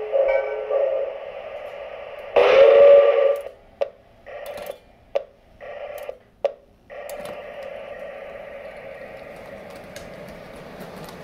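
Model steam locomotive's speaker-produced chime whistle: two loud long blasts, then two shorter, quieter toots and a long, quieter held note, with a few sharp clicks in between.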